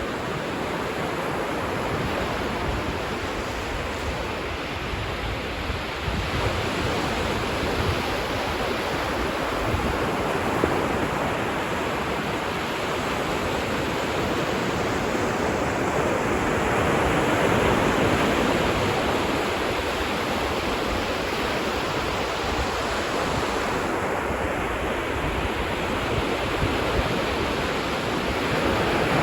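Ocean waves breaking and washing on a beach, a steady surf sound that swells and eases slowly, louder around two-thirds of the way through and again near the end.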